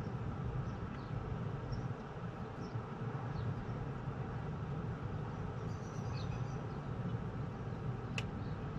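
Steady low outdoor rumble of background noise, with a few faint short chirps and a single sharp click near the end.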